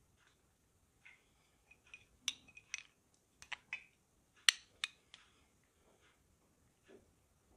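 Metal spoon clinking against a glass jar and a ceramic bowl while serving chili garlic oil: a scatter of short, sharp clinks, the loudest about four and a half seconds in.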